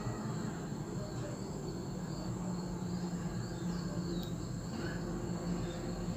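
Quiet background noise: a steady low hum with a faint, steady high-pitched tone.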